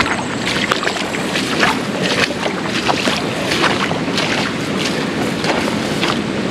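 A steady rush of creek water and wind on the microphone, with irregular short knocks and splashes a few times a second.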